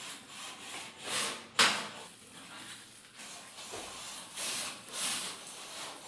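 Scraping and rubbing noises in several swells, with one sharp knock about one and a half seconds in.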